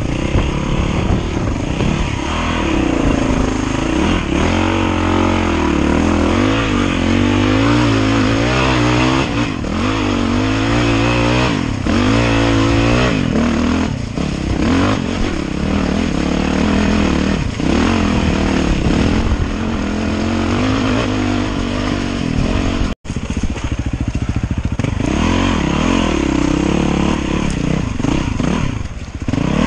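Dirt bike engine revving up and down as the bike is ridden hard through mud and over rocks. The sound cuts out for an instant about two-thirds of the way through.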